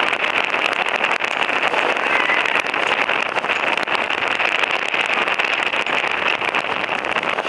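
Steady noise of a vehicle driving along a dirt track at speed, with a constant rush and many small clicks and knocks through it.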